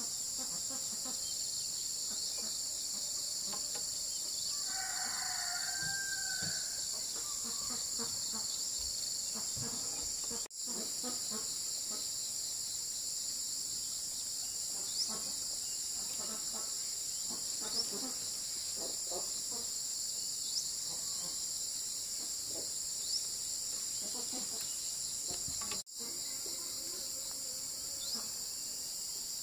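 Steady, dense high-pitched chorus of insects chirring, with a short call about five seconds in and faint scattered knocks beneath.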